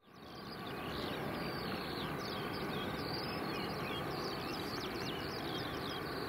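Distant, steady rumble and hiss of a Boeing 777-200LR's GE90 jet engines as the airliner taxis, with many small birds chirping over it. The sound fades in during the first second.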